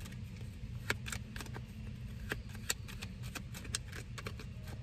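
Tarot cards being shuffled and handled, making irregular light clicks and snaps, over a low steady hum.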